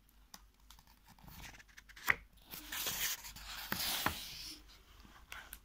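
Page of a picture book being turned by hand: paper rustling and sliding for a few seconds, with a sharp click about two seconds in and a couple more near the end of the turn.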